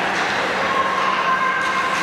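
Ice hockey rink noise during play: a steady scraping hiss of skates on the ice with a few faint knocks, and a thin high-pitched squeal held for about a second and a half from about half a second in.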